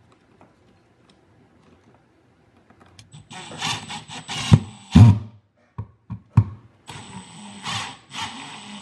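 Milwaukee cordless impact driver driving a wall receptacle's mounting screws into the electrical box: two runs of about two seconds each, a few seconds apart, with a steady high whine. The first run ends in two loud knocks, and there are light clicks of handling between the runs.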